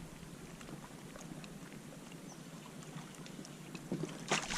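Quiet water sounds around a plastic fishing kayak, with a few faint ticks. About four seconds in, a louder rush of water noise starts.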